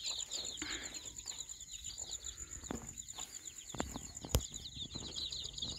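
A brood of about a hundred young Siruvidai country chicks peeping together: many quick, falling peeps overlapping without a break. Behind them runs a steady high whine, and there is one sharp click about four seconds in.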